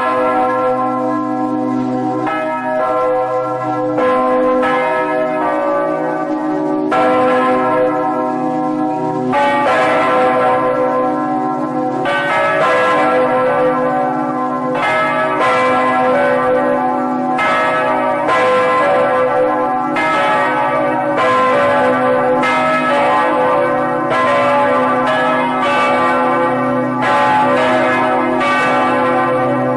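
Church bells pealing, a new stroke roughly every two seconds, each ringing on and overlapping the next so that several bell tones sound together.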